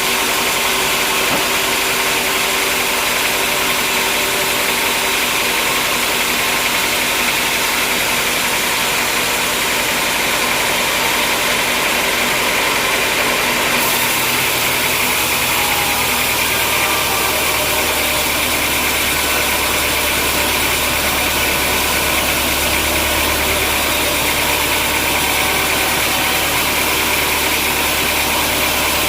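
Sawmill machinery running steadily with a loud, even mechanical noise; about halfway through, a deeper steady hum joins in.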